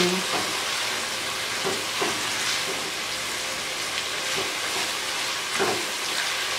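Chicken with onion, tomato, ginger-garlic paste and green chillies sizzling steadily in oil in a nonstick karahi while being stirred, with a few short scrapes of the spatula against the pan.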